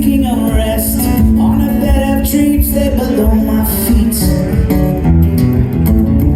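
Live band music: an instrumental guitar passage over bass, with a sliding lead line and a steady rhythm.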